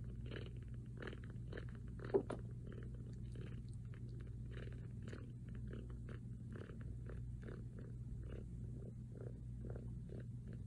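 Newborn kitten making soft, regular mouth clicks about three a second, with one brief rising squeak about two seconds in. A steady low hum runs underneath.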